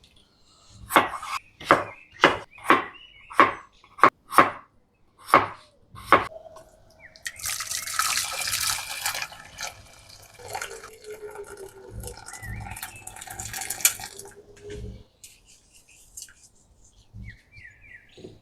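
About ten sharp knocks over the first six seconds, then water running from a kitchen tap for about eight seconds, with a few dull thumps near its end.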